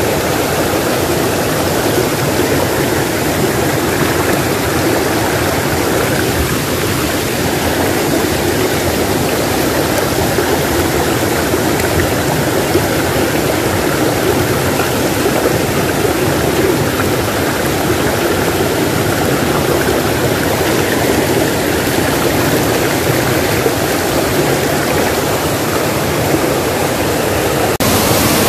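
Shallow rocky stream running over stones: a steady rush and babble of water. Near the end it changes to a brighter, closer rush of tumbling water.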